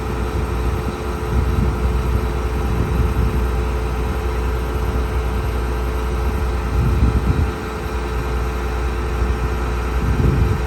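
A heavy vehicle engine running steadily, with a strong low rumble and a steady hum.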